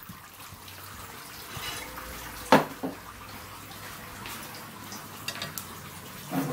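A ceramic plate being set down on a table: one sharp clack about two and a half seconds in, then a few light clicks near the end, over a steady faint hiss.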